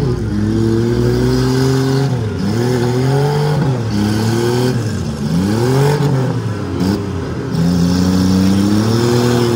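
Demolition derby car engines revving up and falling back again and again, their pitch rising and dropping every second or so as the cars drive and ram in the arena.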